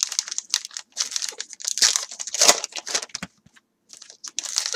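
Crinkling and rustling of a baseball card pack's wrapper and cards handled by hand, in quick irregular strokes with a short pause near the end.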